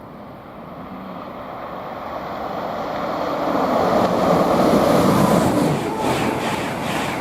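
Intercity 225 train, a class 91 electric locomotive with Mk4 coaches, passing along the main line: a rushing noise of wheels and air that builds to its loudest about four to five seconds in. Near the end a rhythmic clatter of wheels over the rail joints sets in.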